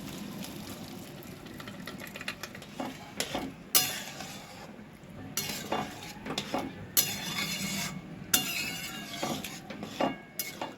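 Boiled chana dal being tipped into sizzling fried masala in a kadai and stirred in. A utensil scrapes and knocks against the pan in repeated strokes about once a second from about three seconds in, over a faint sizzle.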